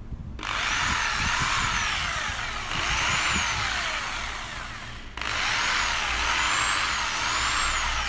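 A concrete hammer drill's electric motor runs at full speed on test, stopping for a moment about five seconds in and then starting again. Its commutator is sparking heavily, which the repairer puts down to a shorted armature.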